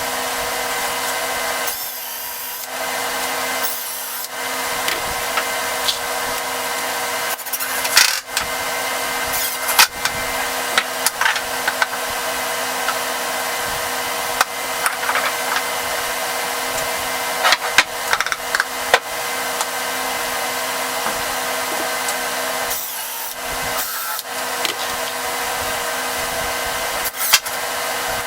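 A power tool running steadily against wood with a rubbing, abrasive sound, briefly easing off a few times, with scattered clicks and knocks.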